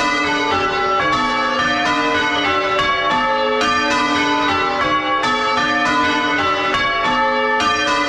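A ring of six chip-tuned church bells with a tenor of about 9 cwt, swung full circle and struck one after another in change ringing. They are heard close up in the belfry, the notes overlapping as each bell keeps ringing after it is struck.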